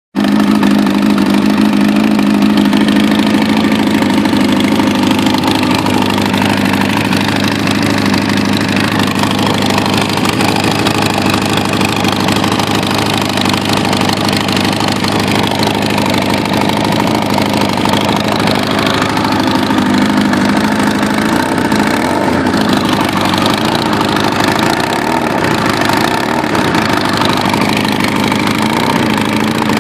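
Kawasaki Ninja ZX-9R's inline-four engine running steadily at idle through a Viper aftermarket exhaust that leaks, the pipe having been pulled loose in a crash.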